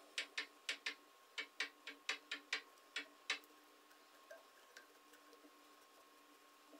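Faint run of sharp clicks, about a dozen at an uneven three to four a second, stopping a little after three seconds in, followed by two softer ticks.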